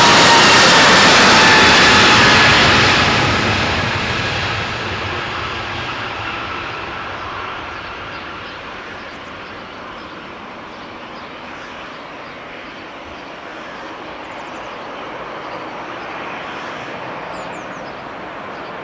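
Jet airliner's engines passing close by: a loud roar with a whine that slides down in pitch as it goes past, then fading over several seconds to a distant steady rumble.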